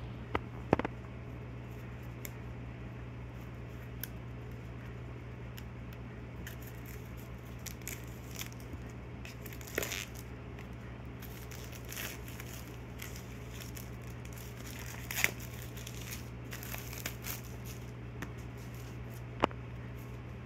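Clear plastic shrink wrap being peeled and torn off a small cardboard box, crinkling, with several sharp clicks and taps as the box is handled. A steady low hum runs underneath.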